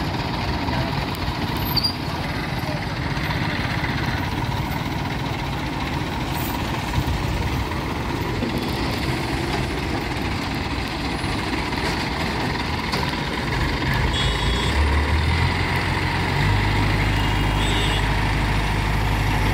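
Heavy vehicle engines idling with passing road traffic. About fifteen seconds in, a nearby engine's low drone grows louder and holds steady, with brief high squeals near that point and again a few seconds later.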